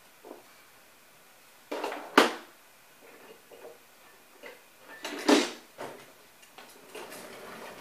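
A few short rustling and knocking noises close to the microphone, the loudest a sharp knock about two seconds in and another cluster about five seconds in.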